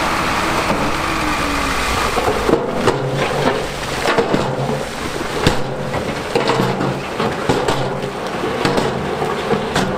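Big stones being dumped and shifted by heavy diesel machinery. A steady low rumble gives way about two and a half seconds in to repeated sharp knocks and cracks of stone striking stone, over an engine running.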